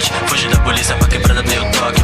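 Hip-hop music with rapping over a heavy beat of deep kick drums and quick hi-hat ticks.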